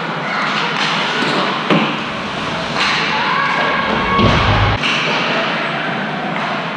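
Thumps and knocks of game play in a large hall over a steady noisy background, with the sharpest knock just under two seconds in.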